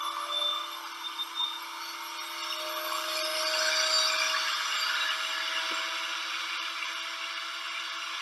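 Small electric woodworking machine running, a steady motor hum with the hiss of wood being shaped against it, loudest about four seconds in. Heard through a video call's audio.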